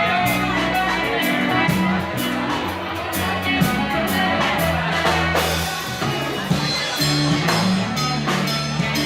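Live rock band playing: drum kit with steady cymbal and drum hits over a moving bass line and guitar.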